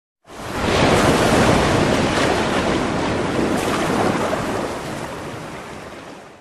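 Sea surf and wind sound effect: a steady rushing noise that starts abruptly and fades away near the end.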